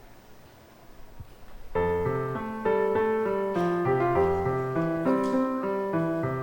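Piano playing the opening introduction of a hymn accompaniment, starting a little under two seconds in after a moment of quiet room tone, with chords and a moving melody in even steps.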